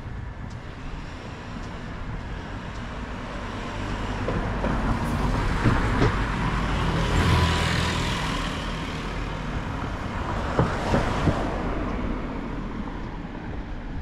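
Street traffic with a motor scooter passing close by: its engine noise swells over several seconds and then fades away. Three quick sharp clicks follow as it fades.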